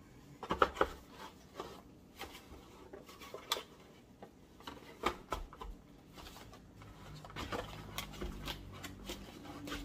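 Handling noise from unpacking a plastic handheld body-sculpting massager and its packaging: scattered clicks and knocks as the device and boxes are picked up and set down, busier near the end.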